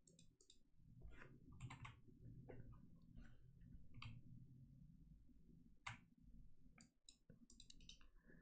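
Near silence with a low steady hum and a few faint computer mouse clicks scattered through it, a sharper one about six seconds in and several near the end.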